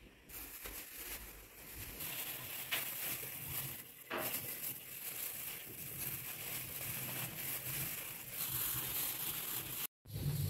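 A hand in a thin plastic glove kneading minced meat stuffing for Tabrizi meatballs in a glass bowl, making a steady mushing and rustling. The sound cuts out for a moment near the end.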